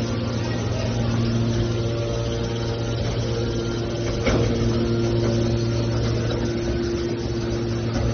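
Hydraulic scrap metal baler running with a steady machine hum, and a single sharp knock about halfway through.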